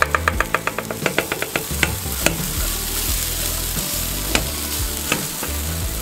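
Cold cooked rice tipped from a steel bowl onto a hot flat-top griddle, sizzling steadily as it hits the oiled surface. A quick even run of sharp taps comes near the start, and a few single clicks follow later.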